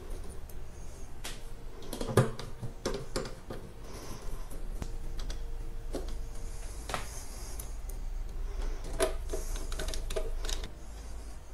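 Irregular small clicks, taps and clatter of hand tools being handled and picked out of a cup of tools, with a sharper knock about two seconds in and a busier run of clicks near the end.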